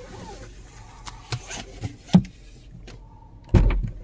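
Several sharp knocks and one heavier low thump near the end, typical of a handheld phone being moved and gripped against its microphone. Under them runs the low steady hum of a moving car's cabin.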